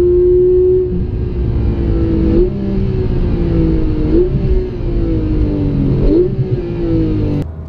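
Porsche 991 GT3's naturally aspirated flat-six heard from inside the cabin, running off-throttle with the revs slowly falling. Three downshifts each lift the revs sharply, about two seconds apart.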